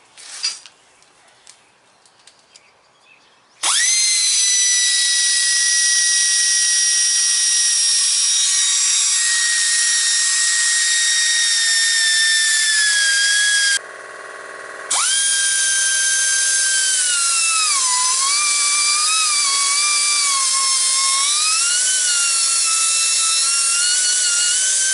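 Air-powered cutoff tool with a small abrasive wheel, spinning up to a high whine a few seconds in and cutting a threaded steel brake-chamber pushrod. It stops for about a second and starts again, its pitch sagging and recovering as the wheel bites into the rod, then winds down at the end.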